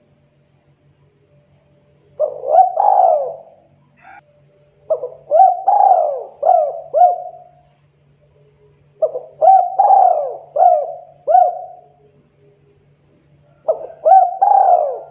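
Spotted dove cooing: four bouts of quick, arching coo notes a few seconds apart, the first bout short and the later ones of about five notes each.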